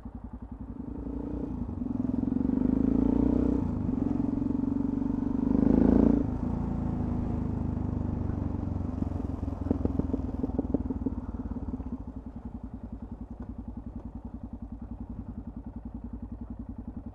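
Single-cylinder Yamaha XT660 motorcycle engine running on the move, picking up revs in the first few seconds, then holding a steady beat that drops to a quieter, even note for the last few seconds.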